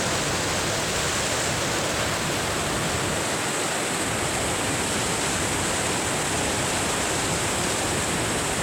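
Waterfall: a steady rush of water pouring over rock.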